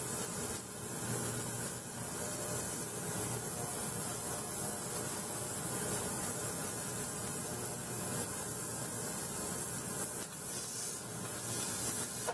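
Harbor Freight ultrasonic cleaner running, with its hot soapy bath cavitating around a dirty sharpening stone held in it: a steady hiss that cuts off suddenly at the end.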